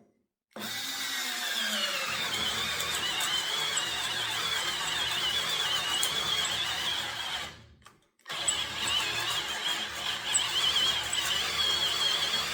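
Milwaukee cordless screwdriver turning a 3/4-inch spade bit into pressure-treated 2x4s: the motor runs under load with a wavering high squeal from the cutting bit. It stops for about half a second two-thirds of the way through, then starts again.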